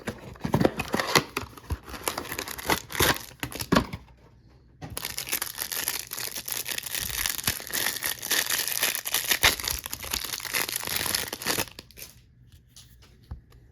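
Trading-card hanger box being torn open by hand, with sharp, irregular rips, then its wrapper crinkling steadily for about seven seconds, stopping near the end.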